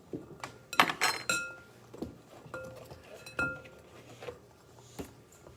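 Kitchenware clinking, about eight irregular taps and knocks of utensils and dishes, several of them leaving a brief ringing tone.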